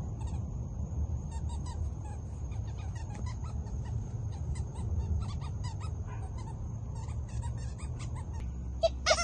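Dog chewing a squeaky toy, giving many short, quick squeaks, with a louder, longer squeak near the end.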